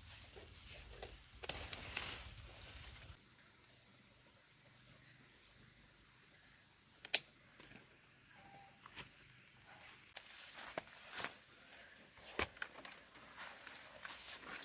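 Steady high-pitched drone of insects, with scattered light clicks and rustles of handling or footsteps over it and one sharp snap about seven seconds in.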